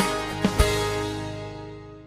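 Background music, a plucked-string track with a beat, which fades away steadily after the first half second.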